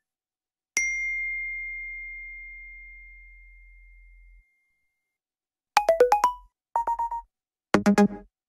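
A run of iPhone alert tones played one after another. About a second in, a single bell-like ding rings out and fades over a few seconds; after a pause, three short, different electronic note jingles follow in quick succession near the end.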